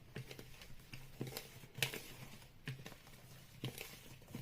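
A utensil stirring dry flour mix in a bowl: faint, irregular clicks and taps against the bowl, the sharpest a little under two seconds in.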